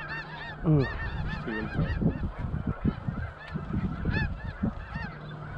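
A chorus of snow geese calling, many short high yelps overlapping without a break.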